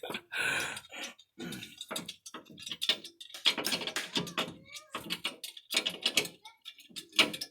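Irregular clicks, taps and clinks of hand tools and metal parts being handled during work on a car's front end, with some faint voice fragments.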